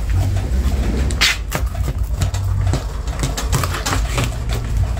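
Kitchen knife cutting through a raw fish fillet on a plastic cutting board, with short scraping taps as the blade meets the board, over a steady low rumble.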